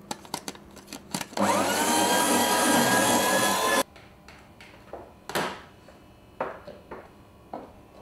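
A small electric motor spins up with a rising whine, runs loud for about two and a half seconds, then cuts off suddenly. Scattered clicks and knocks come before and after it.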